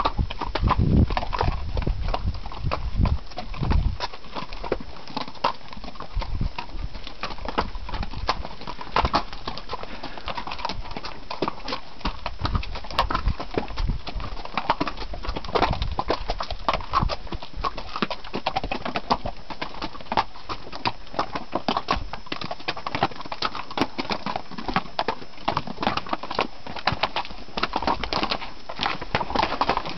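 Mules' hooves clip-clopping at a walk on a rocky dirt trail, a dense, irregular run of hoof strikes from the ridden mule and the string ahead, with a low rumble in the first few seconds.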